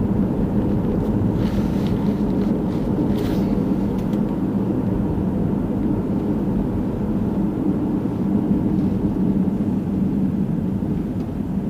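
Steady low road and engine rumble inside a moving car as it drives along, with a faint steady drone and two brief faint hisses in the first few seconds.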